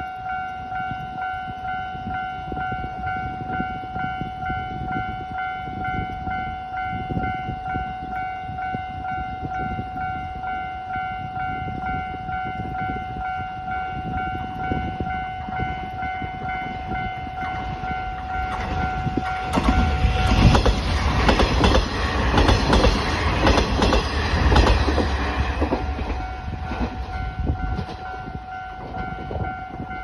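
Japanese level-crossing bell ringing its steady, repeating electronic ding. From about twenty seconds in, a diesel railcar on the JR Sakai Line rumbles and clatters past the crossing for several seconds, then fades. The bell stops right at the end.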